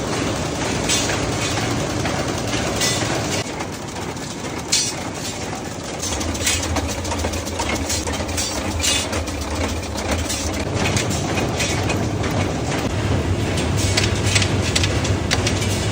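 Factory machinery running steadily, with a dense clatter of rapid clicks and clacks over a low hum that grows stronger about six seconds in.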